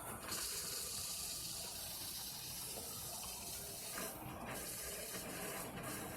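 Dirty water mixed with air blowing out of an open sprinkler system inspection test port, a steady rushing hiss. The line is being emptied by the air pressure left in the system.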